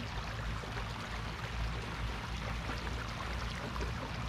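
Floodwater running steadily across a flooded rice field: a constant rushing hiss flecked with fine crackle, over a steady low rumble.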